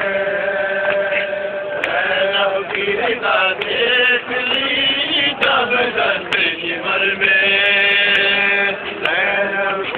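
Men's voices chanting a nauha, a Shia mourning lament, in long held lines, over the slaps of hands beating chests in matam.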